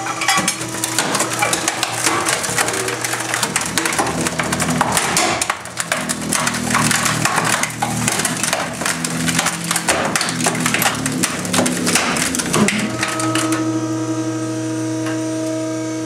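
Compactor ram crushing a turntable: plastic and metal cracking, snapping and crunching over the steady hum of the compactor's motor. The crunching stops about 13 seconds in, leaving only the motor hum as the ram rises.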